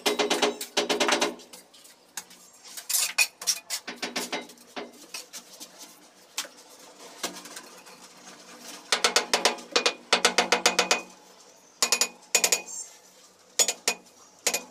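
Ceramic wall tiles being tapped into their mortar bed with a hand tool: quick runs of hard clicking taps, about ten a second, in short bursts separated by pauses.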